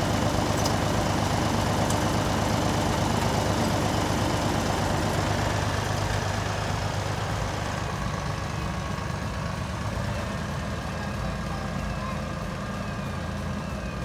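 New Holland compact loader tractor's diesel engine running steadily as the tractor drives off, slowly getting quieter.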